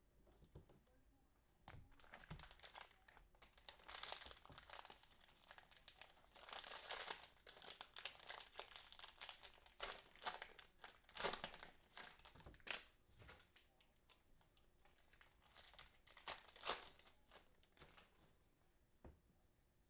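Cellophane wrapper of a football trading-card cello pack crinkling and tearing as the pack is opened, in irregular bursts. It starts about two seconds in and dies away near the end.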